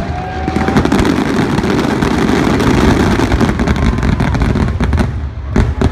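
Fireworks finale: a dense barrage of aerial bursts and crackling that merges into a continuous loud rumble, with a few separate sharp bangs near the end.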